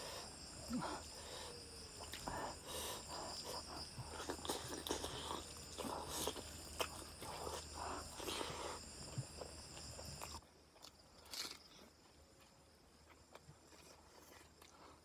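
Close-up mouth sounds of eating rice and chicken curry by hand: wet chewing and lip smacks with many short clicks. The sounds grow quieter after about ten seconds.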